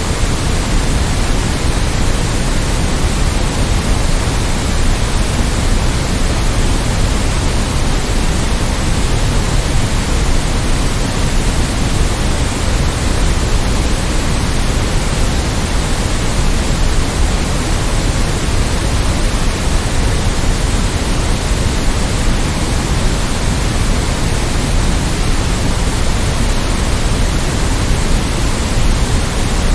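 Steady, unchanging generated white noise: an even hiss spread across all pitches, somewhat heavier in the lows.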